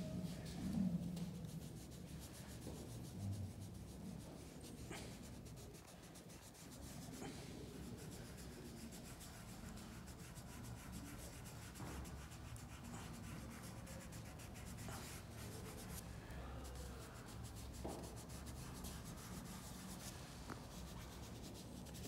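Faint, continuous scratching and rubbing of dry pastel on paper as strokes are laid down and worked in.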